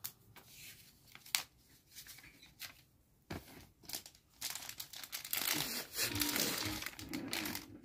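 Clear plastic packaging bag crinkling as it is handled. There are scattered light clicks and rustles at first, then a dense stretch of crinkling over the last two and a half seconds.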